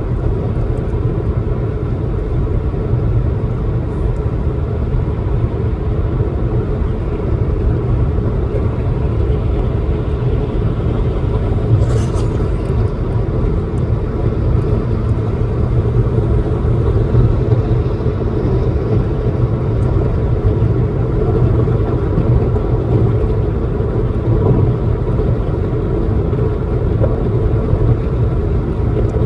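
Car driving, heard from inside the cabin: a steady low rumble of road and engine noise, with a brief click about twelve seconds in.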